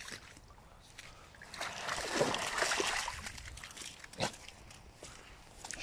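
American bully dog splashing through shallow floodwater, loudest from about one and a half to three seconds in. A brief sharp sound comes about four seconds in.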